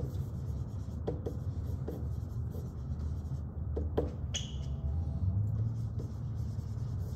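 Dry-erase marker writing on a whiteboard: a series of short strokes and ticks, with a brief squeak about four seconds in, over a low steady hum.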